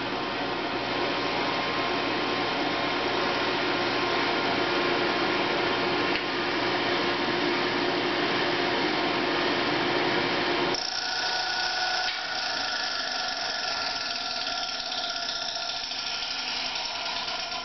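Electric blower of a Champion No. 433 coal forge running with a steady whirring whine. About eleven seconds in the sound drops abruptly to a thinner, higher whine that slowly fades as the blower winds down.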